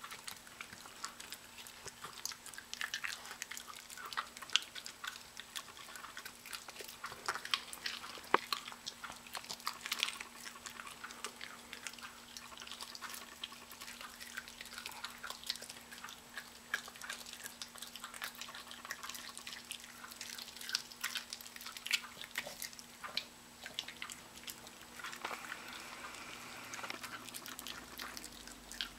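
Miniature Pinscher puppy chewing and gnawing a piece of raw chicken: irregular wet smacking and sharp clicks of jaws and teeth, with a faint steady hum underneath.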